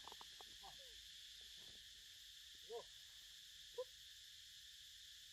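Faint, steady forest insect drone, with short hooting animal calls about three seconds in and again a second later.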